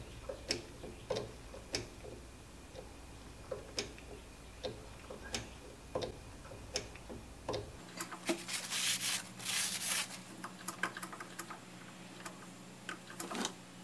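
Hand pump oiler being worked, its lever and plunger clicking irregularly with each stroke as oil is pumped into the lathe headstock. About eight seconds in the clicks give way to a couple of seconds of denser scratchy rattling and rustling.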